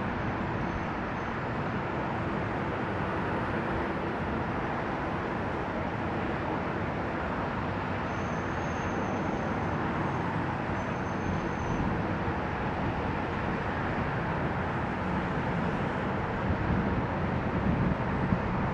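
Steady outdoor airport noise: a low, even rumble of distant jet aircraft with wind, and a faint high whine that slowly drifts up and down in pitch.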